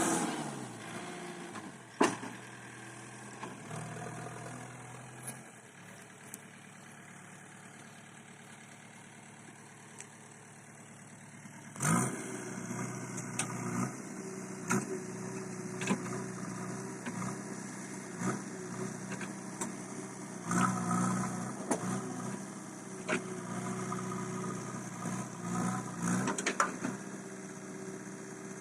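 JCB backhoe loader's diesel engine running, low for the first twelve seconds, then louder and working harder from about twelve seconds in. Sharp knocks come now and then, the strongest about two seconds in.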